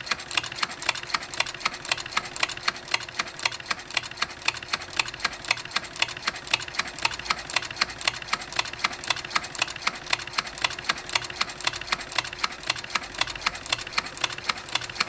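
Permanent magnet shuttling back and forth through two square-wave-driven electromagnet coils, clicking in a fast, even rhythm as it is thrown from one coil to the other, over a faint steady hum.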